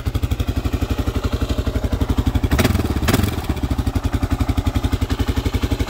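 1995 Suzuki DR650SE's single-cylinder four-stroke engine idling steadily with an even, rapid pulse, a minute after a cold start; the owner says it sounds great. Two short clattering knocks about halfway through.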